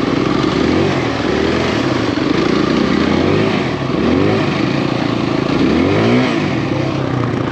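Kawasaki KLX140RF dirt bike's single-cylinder four-stroke engine running at low revs while riding slowly over snow, with two short throttle blips that rise and fall in pitch, about halfway through and again near the end.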